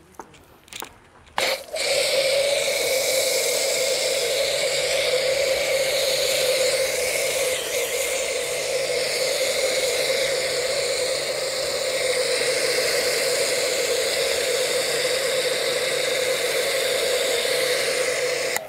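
Foam cannon spraying car-wash foam: a steady, loud hiss that starts about a second and a half in and cuts off sharply at the end.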